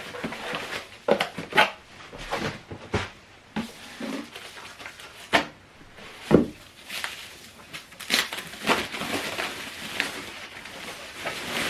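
Handling noise of unpacking: packaging and plastic rustling and crinkling, with irregular knocks and bumps, the loudest a single thump about six seconds in.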